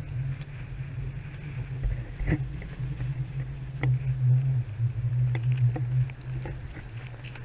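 Ocean surf washing over wet sand, heard as a steady, muffled low rumble, with a few sharp clicks.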